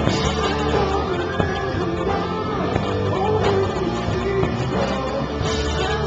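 Rock band playing live at a sound check: guitars and drums with a sung vocal line, steady in level.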